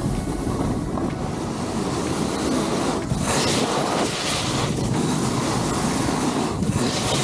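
Snowboard edges scraping and hissing over groomed snow as the rider carves, with louder surges of scraping at each turn a little after three seconds, around four seconds and near the end. Wind rushes over the microphone throughout.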